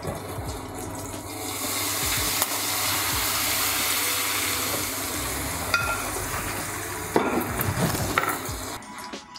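Hot foaming butter and pan juices poured from a frying pan over a seared beef fillet in an aluminium foil tray, sizzling. The sizzle swells about a second and a half in, and dies away near the end after a knock of the pan.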